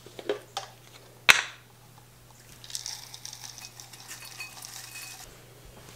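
A container lid twisted open with a couple of small clicks, then one sharp snap about a second in. Dry food is then poured from a small jar into a mixing bowl, a soft rattling rustle lasting a couple of seconds.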